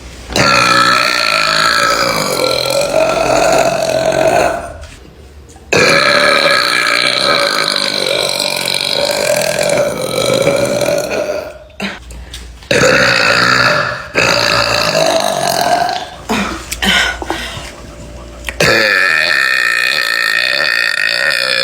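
A young woman belching loudly over and over: a string of about six long, drawn-out belches, several lasting four to six seconds, with only brief gaps between them.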